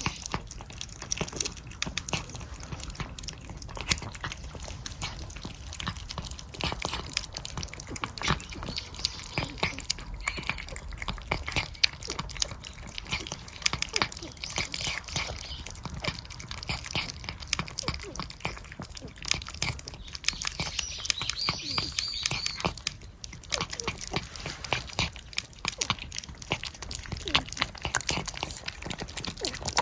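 Several cats eating churu lickable treats, a dense run of small wet licking and chewing clicks.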